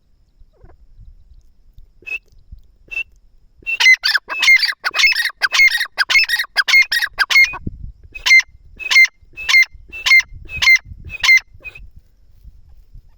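Francolin (teetar) calling loudly: two single notes, then from about four seconds in a fast run of repeated notes. It then slows to a series of about six notes roughly half a second apart, ending near the end.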